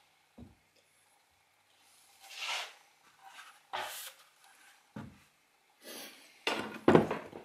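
Handling noises on a wax bench: a waxing iron set down and picked up with a few knocks, paper towel rustling against it, and a louder clatter of tools and objects being moved near the end.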